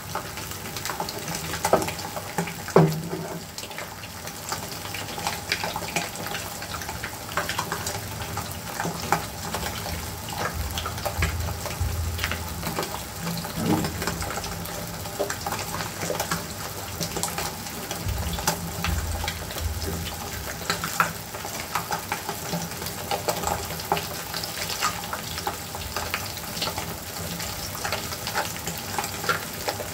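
Eggs frying in a nonstick frying pan: a steady sizzle with scattered small crackles and pops.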